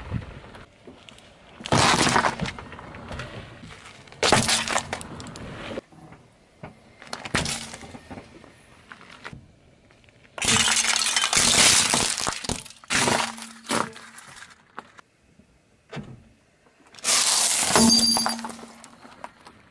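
A car tyre crushing objects on asphalt, heard as about six separate bursts of cracking and crunching. The longest and loudest, a couple of seconds long about halfway through, fits stacked clear plastic cups cracking and shattering. A loud crunch near the end fits a plate breaking and hard-shelled candies being crushed.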